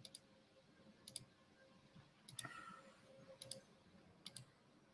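Near silence broken by faint computer mouse clicks, about six of them, roughly a second apart, while a screen share is being set up.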